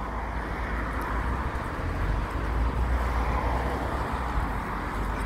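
Steady outdoor street ambience: a wash of road traffic noise over a continuous low rumble, growing slightly louder about two seconds in.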